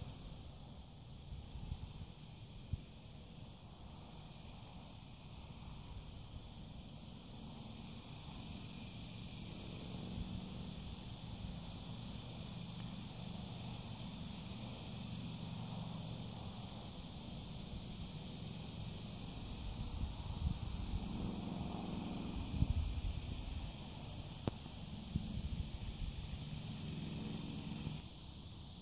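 A steady, high-pitched insect chorus with low rumbling noise beneath it. Occasional soft thuds come through, mostly later on: the hoofbeats of a Quarter Horse loping on soft arena dirt.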